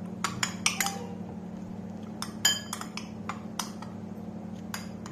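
A spoon clinking against a small bowl while dry seasoning powders are stirred together: about a dozen irregular taps, one ringing out clearly about two and a half seconds in. A steady low hum runs underneath.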